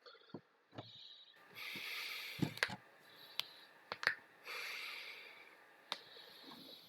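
A person breathing heavily: two long, hissy breaths of a second or more each, with several sharp clicks in between.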